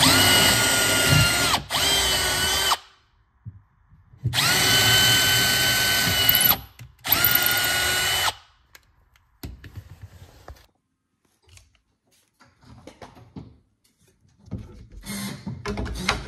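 Milwaukee cordless drill boring handle holes through a wooden cabinet door: four runs at a steady pitch, two close together near the start and two more about four seconds in. The drill stops after about eight seconds, and light knocks and handling sounds follow.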